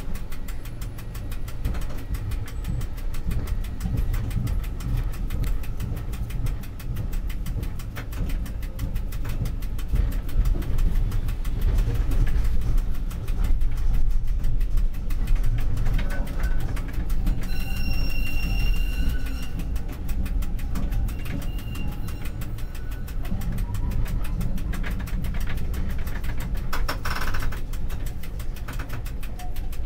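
Bus engine running steadily under way, a low, evenly pulsing rumble heard from the driver's cab. A brief high ringing tone sounds about two-thirds of the way through.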